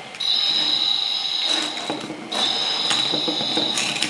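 A small mechanism running with a steady high-pitched whine and scattered clicking. It cuts out briefly about two seconds in, then starts again.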